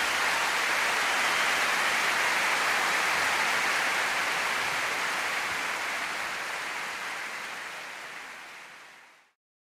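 A steady, rain-like rushing hiss that fades out over the last few seconds and stops about nine seconds in.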